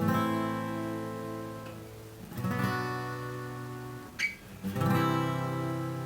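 1971 Gibson J-50 acoustic guitar: three strummed chords, each left to ring out, about two and a half seconds apart. A short squeak comes just before the third chord.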